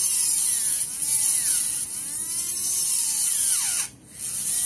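Tamiya Hyper-Dash mini 4WD motor spinning a propeller shaft at high speed while a file is held against its gear, trimming it down like a lathe. The high whine swings up and down in pitch. Near the end it winds down, cuts out for a moment and starts again.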